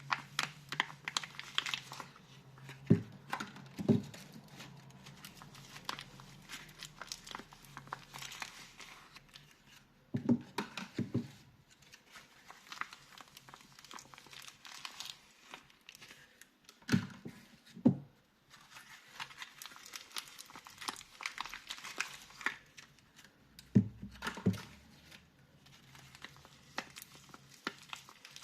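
Soap packaging being unwrapped by hand: steady crinkling and tearing. Four times, a pair of dull knocks stands out as the loudest sound.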